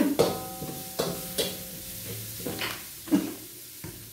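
Spatula scraping and knocking against a thin wok while stir-frying, with oil sizzling steadily underneath. There are several sharp strokes at an uneven pace.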